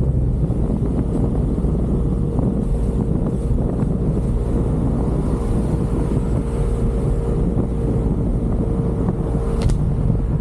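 Wind rushing over the camera microphone while riding a Yamaha Aerox 155 scooter, with its single-cylinder engine running and a steady whine that stops with a short click near the end.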